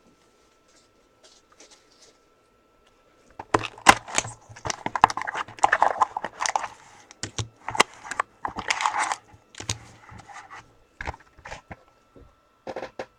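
Box of football trading cards being opened by hand: short hissy rustling and crinkling with many sharp clicks of cardboard and wrappers. It starts about three and a half seconds in, after a quiet start, and thins to scattered clicks near the end.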